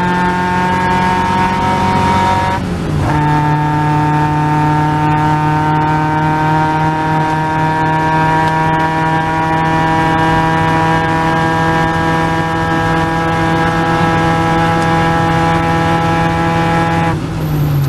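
Caterham Seven's 2.3-litre Ford Duratec four-cylinder racing engine under full throttle. The pitch climbs steadily, drops sharply with an upshift about three seconds in, then climbs slowly through a long pull. Near the end the pitch falls away as the driver lifts off.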